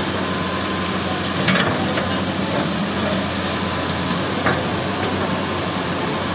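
Hitachi EX200 hydraulic excavator's diesel engine running steadily as the boom lowers the bucket into the river. A few short knocks come through, about one and a half seconds in and again after four seconds.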